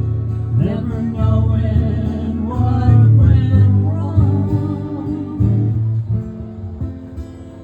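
Live song with singing over an acoustic guitar; the singing drops out after a few seconds and the music grows quieter toward the end.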